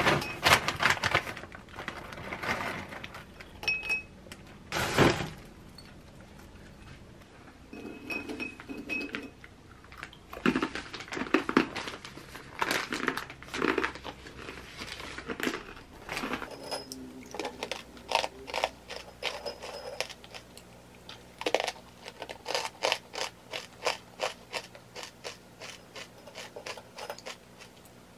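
Lotus root chips rattling into a glass bowl at the start, then crunched between the teeth in a long series of crisp crunches, coming at about two a second in the later part.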